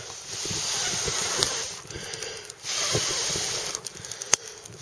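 A person blowing hard on the glowing embers of a wet-wood fire to revive it: two long breaths, each a rush of hiss on the microphone. A single sharp click sounds near the end.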